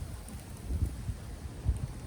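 Wind buffeting the microphone outdoors: an uneven low rumble that swells in gusts.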